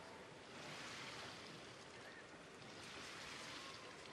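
Faint, hushed swimming-arena ambience: an even hiss of pool water and a quiet crowd, swelling softly twice, while backstroke swimmers hold the blocks in the water waiting for the start.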